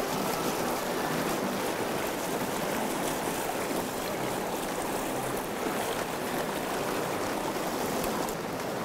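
Steady rush of white-water rapids in a small stream, an even wash of water noise.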